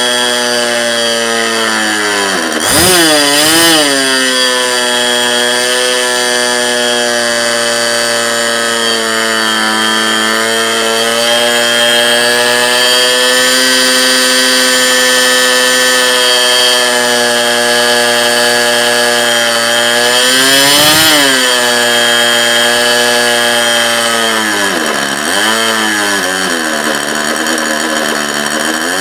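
OS .61 FSR two-stroke glow engine running steadily at high speed. Its pitch dips and picks back up briefly a few seconds in, again about two-thirds of the way through, and once more near the end.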